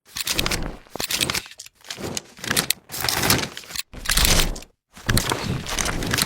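A string of short crackling, crunching noise effects played back to back, about six of them, each cutting off abruptly before the next begins.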